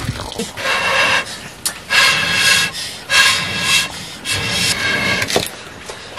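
Someone blowing through a bamboo blowpipe into a wood cooking fire to fan the embers: three long, breathy, hollow-sounding blows about a second apart, with a sharp click about five seconds in.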